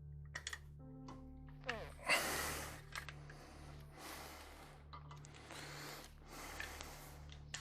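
Soft, droning background music with held tones, over scattered small clicks and several short hissing bursts, the loudest about two seconds in, from hand work on a small-block Chevy cylinder head.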